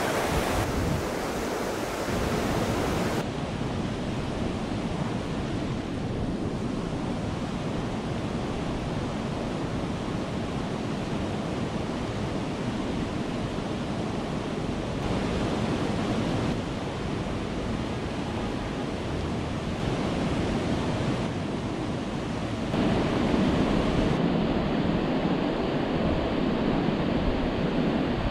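Water pouring over a river weir: a steady rush of white water, with wind noise on the microphone. It grows a little louder in the last few seconds.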